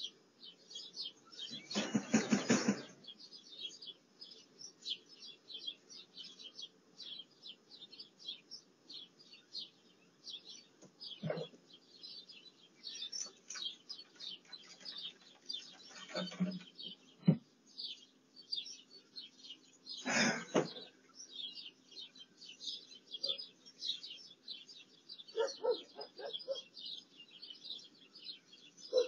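Small birds chirping rapidly and continuously, with a few louder short noises about 2, 16 and 20 seconds in.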